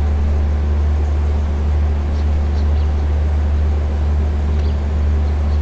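Steady low drone of the standing express train's idling diesel engine, with a few faint ticks.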